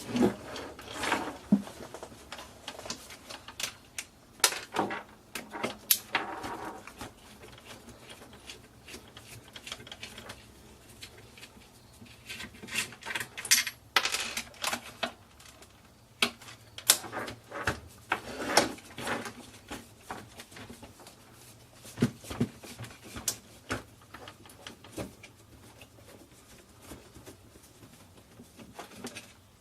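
Small plastic and metal parts of a JADCO clock radio cassette player clicking, clinking and rattling as it is taken apart by hand: irregular clicks and knocks, with louder clusters now and then.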